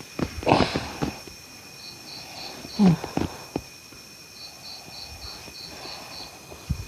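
A person snoring: one snore about half a second in and a shorter, pitched snort near three seconds. Crickets chirp in short, evenly spaced trains in the background.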